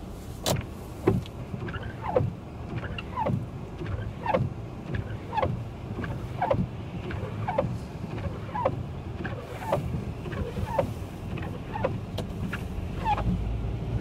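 Car windshield wipers sweeping about once a second, each stroke giving a short squeak that falls in pitch and a light knock as the blade turns, over a steady low noise.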